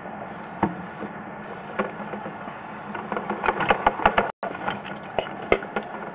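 Sewer inspection camera head and push rod knocking and scraping against the pipe as it is handled and fed into a cleanout: scattered clicks, then a quick run of knocks about three to four seconds in, over a steady low hum.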